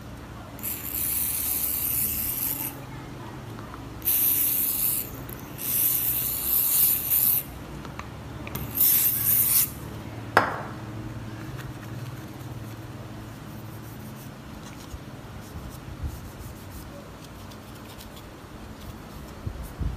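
Aerosol spray can hissing in four short bursts, followed by a single sharp click, then faint rubbing as a tissue wipes the phone's plastic front housing.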